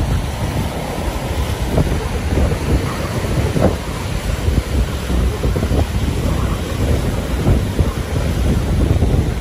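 Strong wind buffeting the microphone with a heavy low rumble, over choppy lake waves breaking and splashing against a rocky shore.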